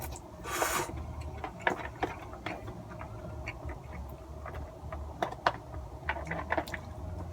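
Eating instant cup yakisoba: irregular light clicks and taps of chopsticks against the container, with a short noisy burst about half a second in. A faint low hum runs underneath.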